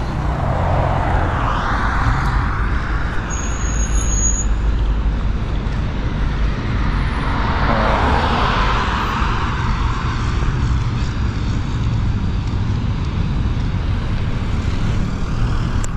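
Road traffic going past close by: a steady low rumble, with two vehicles sweeping past, one about a second in and another around eight seconds in.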